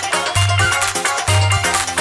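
Loud electronic dance music, a backing track with a deep bass note hitting about once a second.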